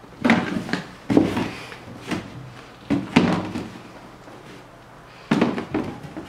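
Cardboard shoe boxes being handled and closed, with sneakers set down on the lids: a string of separate knocks and thumps, a cluster of them about five seconds in.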